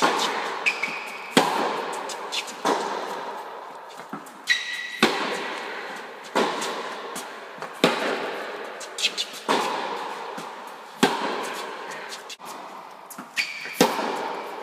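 Tennis rally in a reverberant indoor tennis hall: sharp racket strikes and ball bounces about every second and a half, each ringing out in a long echo, with a few short, high shoe squeaks on the court.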